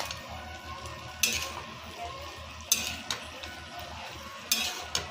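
Potato, cauliflower and soybean curry with its masala sizzling in a frying pan on high heat, while a spatula scrapes and tosses it three times, about every one and a half seconds.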